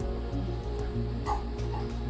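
Background music with a steady low beat, and a short dog bark about a second in.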